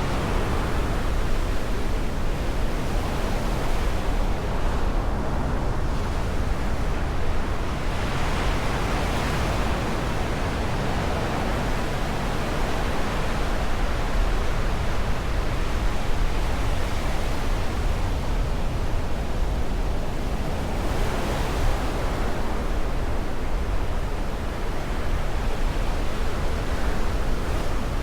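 Black Sea surf washing onto the shore: a steady rushing hiss with a low rumble, swelling as waves break about a third of the way in and again about three quarters of the way through.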